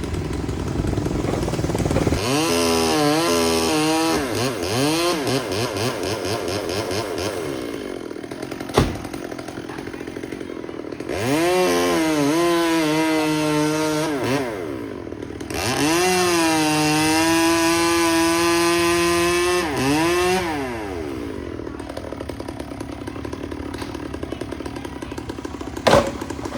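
Two-stroke chainsaw revving up to high speed and dropping back to idle three times, each burst held for a few seconds. There are two sharp knocks, one about nine seconds in and one near the end.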